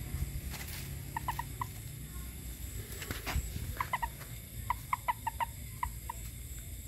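Frogs calling: bursts of short, quick chirping notes, four about a second in, a few near four seconds and a longer run of about eight just before six seconds, over a steady low rumble.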